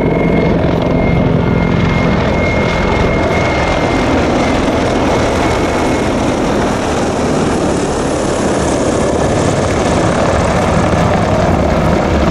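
Mil Mi-35 attack helicopter flying past, its rotors chopping and its twin turboshaft engines running loud and steady. A steady high whine sits over the rotor noise for the first half and fades out about halfway through.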